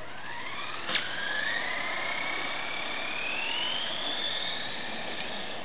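Sugar-fuelled rocket thruster on an RC car burning with a steady hiss, with a sharp crack about a second in and a thin whistle that rises smoothly in pitch over about four seconds.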